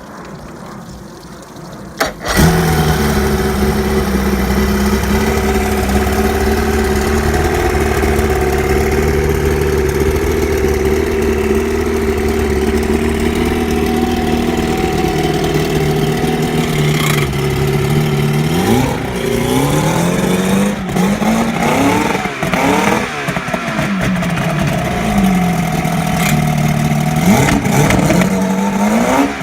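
Chrysler 105 hp two-stroke outboard motor starting about two seconds in and settling into a steady idle, then being revved up and let back down several times in the last third.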